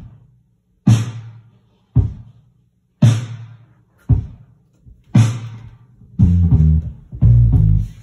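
Band ending on electric guitar, bass guitar and drums with cymbal: five sharp hits struck together about a second apart, each left to ring out and fade, then two longer held chords close together near the end.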